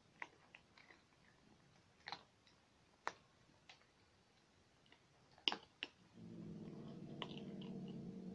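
Domestic cats eating from a plastic bowl: scattered sharp clicks and crunches of chewing. About six seconds in, a low, steady rumbling vocalisation from one of the cats starts and holds.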